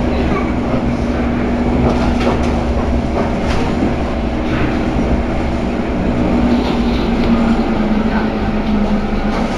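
SMRT C151 MRT train running between stations, heard from inside the car: a continuous steady drone with the reported grinding noise from under car 3093, and occasional faint clicks from the track. The low tone drops slightly in pitch about eight seconds in.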